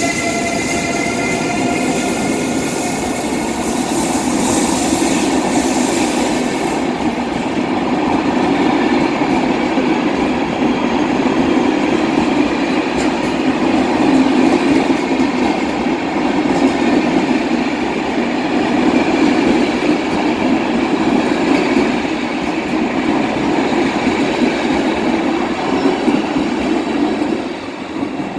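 Coaches of a departing passenger train rolling past as it pulls out, a steady rumble and clatter of wheels on rails. At the start the rising whine of the Siemens EU44 electric locomotive's traction drive fades as it moves away. Near the end the last coach passes and the sound falls off.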